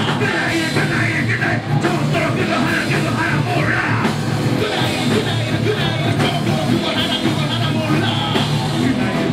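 Live rock band playing a heavy, punk-edged metal song: a vocalist singing and shouting into the microphone over electric guitar, bass and a drum kit.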